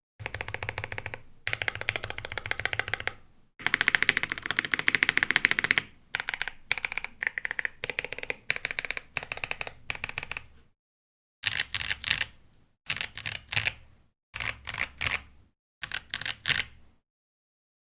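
Typing on a Pizza65 mechanical keyboard with an aluminum plate and lubed, filmed Boba U4T tactile switches: fast, continuous runs of keystrokes for about ten seconds, then four short bursts of keystrokes. It stops about a second before the end.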